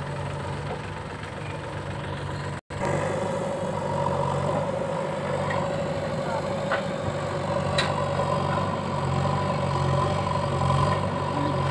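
Diesel engines of a JCB backhoe loader and a Mahindra tractor running steadily at a low, even drone. The sound cuts out for a moment about two and a half seconds in, then the engine comes back with a steadier higher hum on top.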